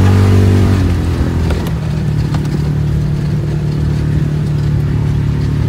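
A vehicle's engine running as it drives along a bumpy dirt trail: the engine note eases down in the first second, then holds a steady hum, with a few light knocks and rattles.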